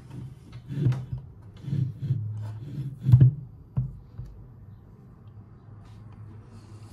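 Rotor of a small induction motor being pulled by hand out of its stator, with its end shield attached: a few dull clunks and scrapes of metal parts, the loudest about three seconds in, then quieter handling.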